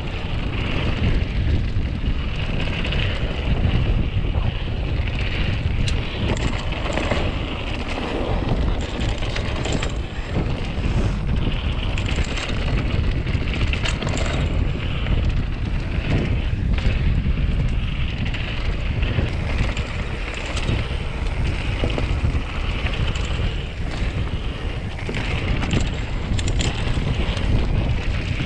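Mountain bike coasting fast downhill on a dirt trail: wind rushing over the camera microphone and tyres rolling on dirt, with frequent clicks, knocks and rattles from the bike over bumps.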